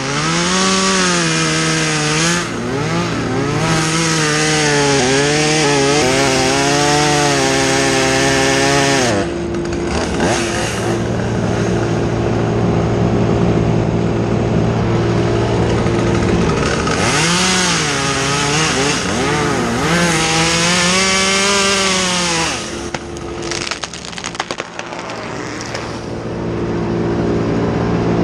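Chainsaw revving high and cutting wood, its pitch sagging and climbing back again and again under the load of the cut. It eases off for several seconds in the middle, where a steady lower engine hum carries on, then cuts again. Near the end it drops to a quieter stretch with a few knocks.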